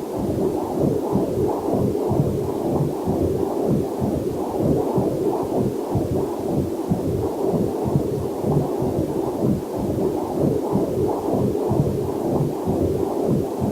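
Fetal Doppler heart monitor picking up a heartbeat as a quick, even train of whooshing pulses.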